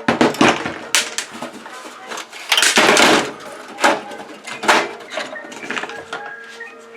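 Metal computer-case parts clanking and clinking as they are handled during disassembly: a string of sharp, irregular clanks, about half a dozen louder ones, with brief metallic ringing after them.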